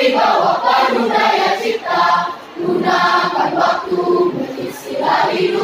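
A school choir of boys and girls singing together in Indonesian, with a short break for breath between phrases about halfway through.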